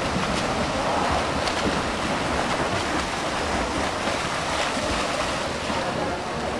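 Swimmers splashing through pool water: a steady churning of water from their strokes and kicks.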